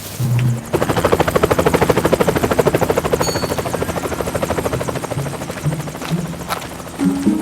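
Helicopter sound effect: rotor blades chopping rapidly and evenly, starting abruptly about a second in and easing off a little toward the end.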